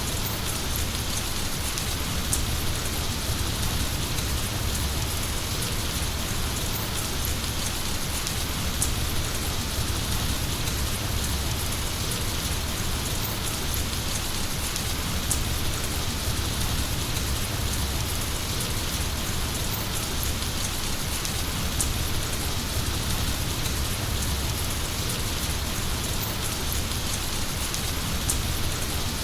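Heavy rain falling steadily, an even hiss with a few sharp ticks now and then.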